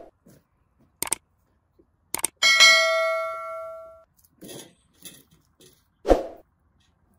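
Metal cookware struck once, ringing for about a second and a half, with a few light knocks before it and a duller thump near the end.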